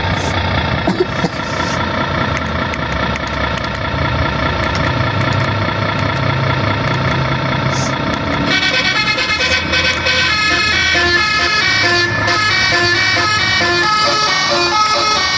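Telolet horn on a miniature RC tronton truck: a steady droning tone, then about eight and a half seconds in a melodic tune of quick stepped horn notes starts and keeps playing.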